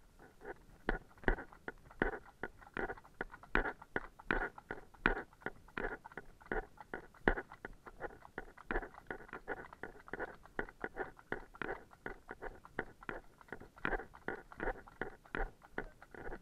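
Horses' hooves clip-clopping on a wet tarmac lane: a steady stream of sharp hoofbeats, several a second, from the ridden horse and the horses just ahead.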